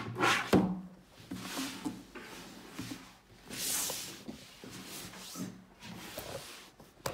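A rigid cardboard gift box being handled and moved on a wooden table, with a sharp knock about half a second in, then irregular rubbing and rustling of the packaging.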